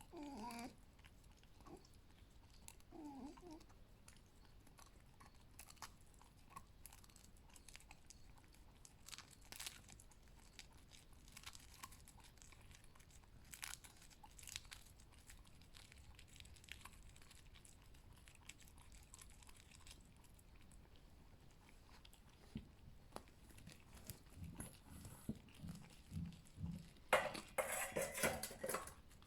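A pet fox chewing and crunching its food: faint, irregular wet bites and crunches, with a louder patch near the end.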